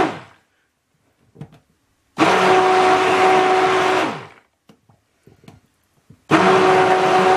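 Stick blender run in short bursts in a plastic jug of cold-process soap batter, mixing in lemongrass essential oil: a steady motor hum with a fixed whine. It stops just after the start, runs again for about two seconds in the middle, and starts once more near the end, with faint clicks between bursts.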